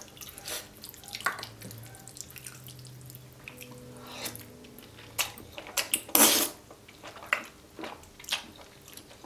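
Loud wet slurping of creamy carbonara fettuccine noodles sucked into the mouth, loudest in one long slurp about six seconds in, among smaller wet mouth clicks and smacks.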